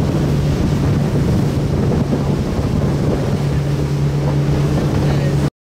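Boat engine running steadily at speed, with wind buffeting the microphone and water rushing past the hull. It cuts off abruptly near the end.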